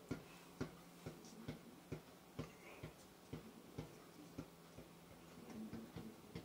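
Faint ticking: short, sharp clicks at an even pace of about two a second, over a low steady hum.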